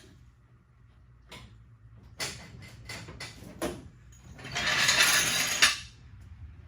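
Metal tools clicking and clanking against car parts during drive line removal, then a loud rushing hiss of about a second and a half that stops sharply.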